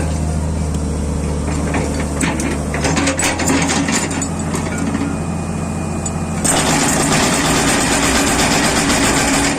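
Excavator diesel engine running steadily, with scattered metallic knocks and clanks. About two-thirds of the way through, a louder rushing noise sets in, the machine working under load.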